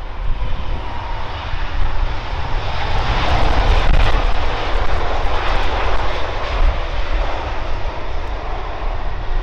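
Airbus A350 jet with Rolls-Royce Trent XWB engines flying past, a loud engine roar with deep rumble that builds to a peak about three to four seconds in and then slowly fades.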